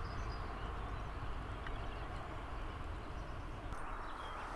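Steady outdoor background noise with a low rumble on the microphone, plus a few faint bird chirps.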